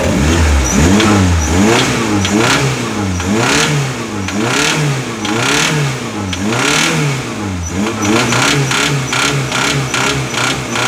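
Old car engine being revved up and down over and over, about once a second, with a knocking rattle near each peak in revs. This is the sign of worn connecting-rod (big-end) bearings, whose noise comes in from mid revs upward.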